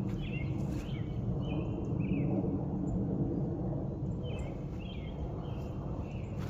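Outdoor ambience: birds chirping in runs of short high calls over a steady low rumble.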